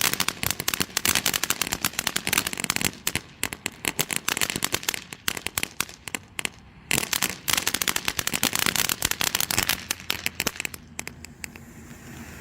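Magnus 3 Minute Madness 200-gram fountain firework crackling: a dense, rapid run of crackles and pops over a hiss of sparks. It thins out briefly in the middle, then gives way to a steadier hiss near the end.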